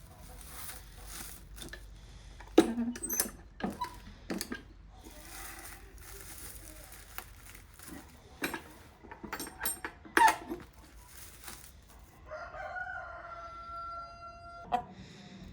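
Chickens clucking in short, scattered calls, then a rooster crowing once in a long, held call near the end.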